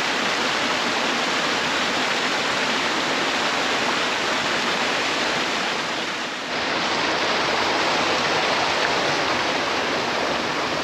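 Steady rushing of a waterfall, an even hiss of falling water, dipping briefly about six seconds in.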